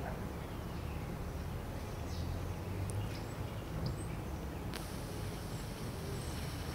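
Outdoor ambience: a low, uneven rumble with faint high chirps of small birds scattered through it, and one sharp click about five seconds in.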